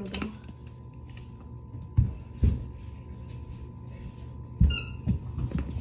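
A few dull thumps on a wooden floor close to the microphone, about two, two and a half and four and a half seconds in. A short high squeak follows the last one, over a low steady hum.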